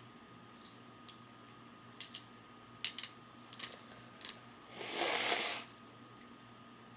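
A few light, sharp clicks and taps, then a short noisy breath through the nose about five seconds in, from someone who has sniffed pepper and is close to sneezing, without a sneeze.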